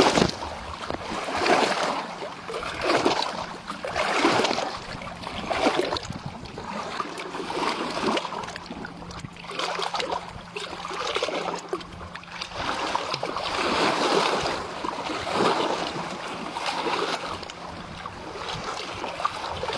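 River water splashing and lapping in regular surges about every second and a half, over a faint steady hum.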